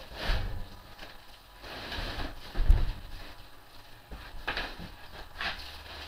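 Shipping boxes being opened and unpacked by hand: irregular scraping and rustling of packaging with several knocks, the loudest about two and a half seconds in.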